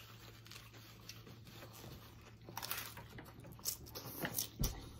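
A person biting into and chewing a taco, with a run of crisp crackles and clicks in the second half.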